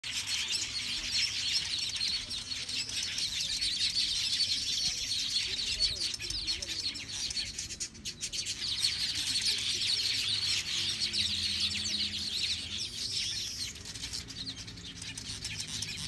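A nesting colony of weaver birds chattering, a dense, continuous mass of many overlapping high chirps.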